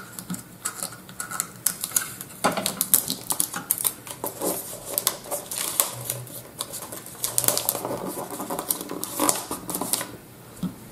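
Wrapping paper being folded and creased around a small gift box by hand: irregular crinkles, rustles and light clicks.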